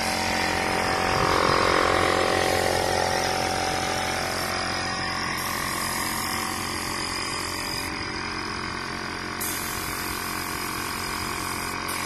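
Compressed-air paint spray gun with a siphon cup, hissing steadily as paint is sprayed, over the steady hum of the air compressor that feeds it.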